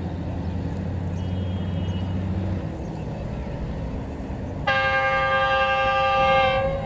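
GE GEU-40 diesel-electric locomotive approaching with a low, steady engine drone, then sounding its air horn in one long, loud blast of about two seconds near the end.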